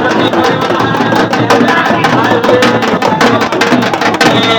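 Loud, fast drumming, with rapid strokes coming in a dense, unbroken stream.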